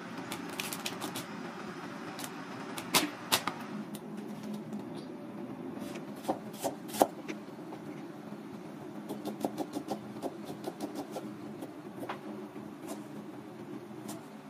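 Chef's knife striking a plastic cutting board while a crab and then garlic are cut: single sharp chops at first, then runs of quicker taps as the garlic is sliced and minced, over a steady low hum.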